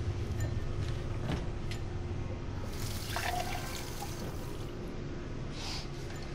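Water running briefly from a kitchen tap into a glass, a short rush from about three seconds in, over a low steady hum and a few small clicks.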